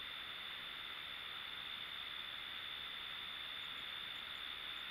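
Quiet, steady hiss with a constant high-pitched whine running under it; no knock, tap or other distinct sound.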